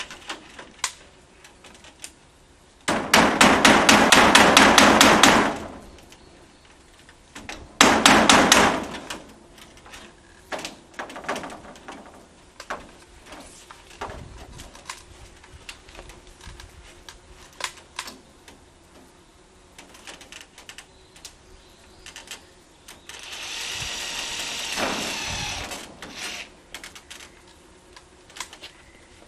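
Cordless impact driver rattling in two bursts, a long one about three seconds in and a short one about eight seconds in, followed by scattered light knocks. Near the end, a whirring sound falls in pitch.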